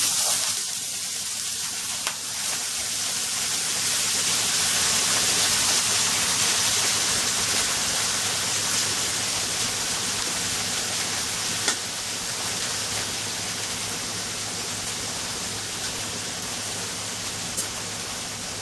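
Chopped nappa cabbage sizzling in hot oil in a frying pan, just tipped in onto browned garlic: a steady hiss that slowly fades, with a few light clicks.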